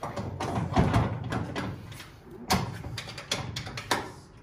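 Metal hand tools and motorcycle parts knocking and clanking as they are handled during suspension work, with a cluster of knocks about a second in and sharper clanks near two and a half seconds and twice more near the end.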